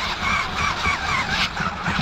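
Electric motor of a Maisto remote-control monster truck whining, its pitch warbling up and down several times a second as it runs over grass, with a low rumble from the wheels.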